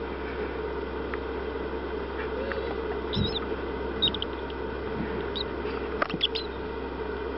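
Great horned owl chick peeping faintly from inside its pipped egg as it hatches: a few short, high squeaks about three, four and six seconds in, over a steady hiss, with a soft thump near the middle.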